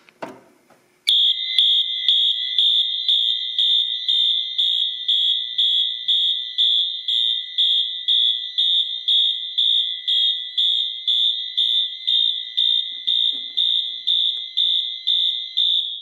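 Fire alarm horn sounding in march time, a loud high-pitched tone pulsed about twice a second, starting about a second in. The panel is in alarm, set off by the manual pull station.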